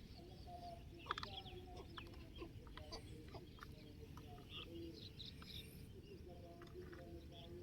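Light, scattered clicks and knocks of small plastic toy vehicles being handled, with short, low, repeated animal calls in the background.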